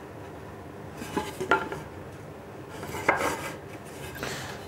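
A square and a wooden board being handled while the board's end is checked for square: a few light taps and rubs of the tool against the wood, the clearest about one and a half seconds in and about three seconds in.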